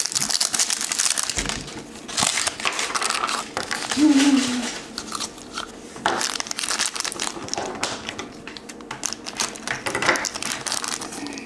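Plastic packaging crinkling and crackling in irregular rustles and small clicks as a toy blind pack is opened by hand: a small plastic trash-can container and the yellow plastic bag inside it.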